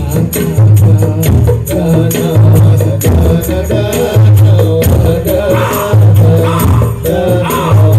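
Loud music played through a big carnival sound system, with heavy, repeating bass notes and fast, busy high percussion over a melody line.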